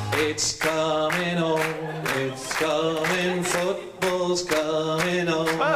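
Unaccompanied singing voice, in short held phrases with brief breaks between them.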